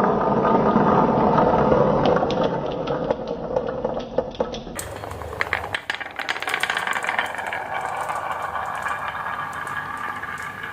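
Marbles rolling and clattering down a wooden HABA marble run: a dense rolling rumble of many marbles at once for the first few seconds, then an abrupt change about halfway through to lighter, rapid clicking and rattling as marbles tick along the track.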